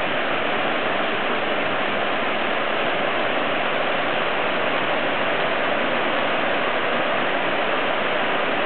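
Heavy rain falling steadily: an even hiss of downpour without breaks.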